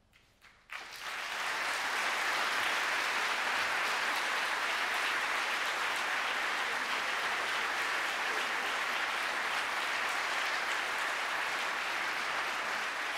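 Audience applauding: clapping that breaks out about a second in and holds steady.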